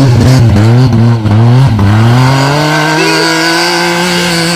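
Off-road vehicle engine running hard under load, close up: its pitch dips and surges several times in the first couple of seconds, then climbs and holds at higher revs.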